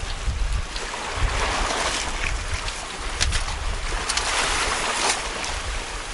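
Sea waves washing against shore rocks, swelling about a second in and again about four seconds in, with wind buffeting the microphone as a low rumble.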